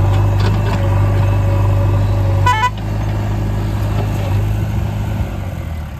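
Heavy diesel engine of the backhoe loader and tractor running steadily, with a short horn toot about two and a half seconds in; after the toot the engine note drops and runs a little quieter.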